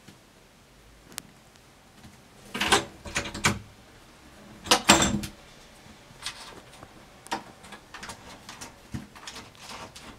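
A wooden interior door rattling and knocking in its frame as a cat paws at its edge: two loud clusters of knocks about two and a half and five seconds in, then lighter scattered taps.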